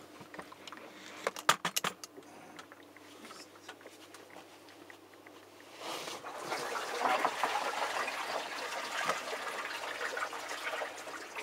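Several sharp plastic clicks from handling the condensed-water tank of a Siemens IQ700 heat pump dryer. About six seconds in, water starts trickling and splashing steadily.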